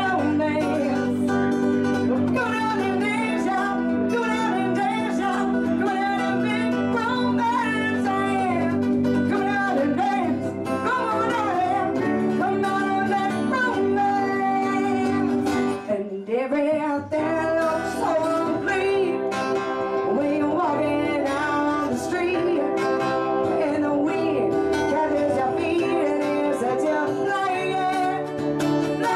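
Live band: a woman singing over strummed acoustic guitar, a second plucked string instrument and keyboard chords. The playing thins out briefly about halfway through, then carries on.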